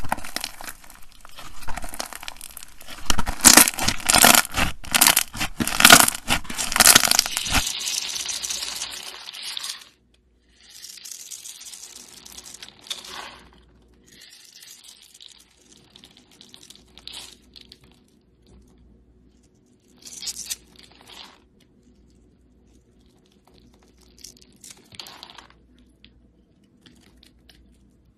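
Clear slime with beads being stretched and pulled, making a dense crackling, tearing sound for about the first ten seconds. After that, a few short, quieter scraping and crumbling sounds come from a dry bar of soap being worked by hand.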